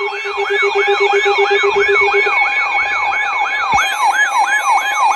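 Electronic siren yelping, a fast repeating rise-and-fall of about three and a half sweeps a second, layered with a steady high tone and, for the first two seconds, a rapid low beeping. More siren layers join about four seconds in.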